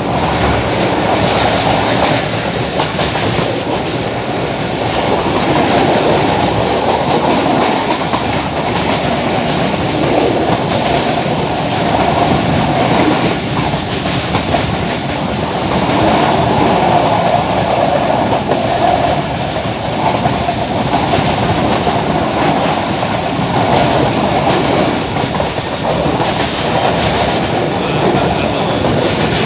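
Passenger train running steadily along the track, with a continuous rumble and rattle of the wheels and coach.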